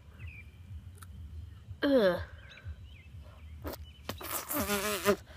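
A boy's wordless groans of disgust as he bites an earthworm in half: a falling groan about two seconds in, then a louder, breathier groan near the end. Faint bird chirps sound in the background.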